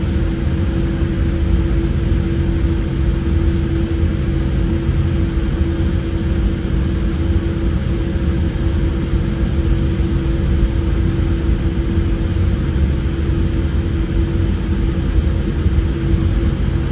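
Cabin noise of a Boeing 787-8 taxiing with its GE GEnx engines at idle: a steady low rumble with a steady hum tone over it.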